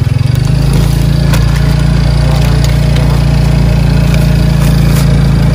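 Bentor (motorcycle-powered pedicab) engine running steadily and loud while riding down a dirt road, heard from on board.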